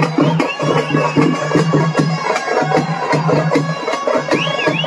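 Loud live festival music: fast, dense drumming with a high wavering wind-instrument melody over it.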